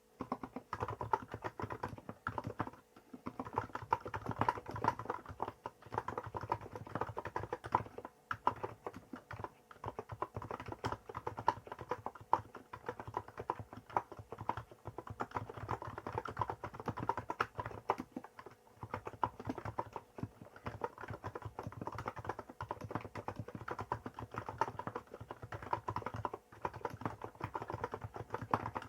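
Fast, continuous typing on a Hansung GK868B electro-capacitive (non-contact) keyboard with 50 g switches and Apple-style keycaps, a steady patter of keystrokes broken by a few short pauses.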